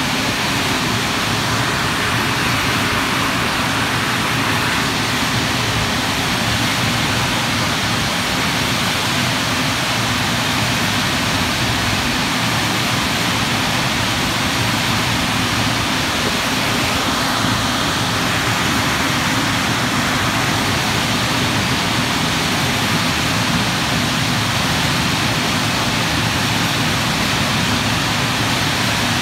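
Car wash blower dryers by Specialty Equipment running at full blast: a loud, steady air rush with a low motor hum underneath.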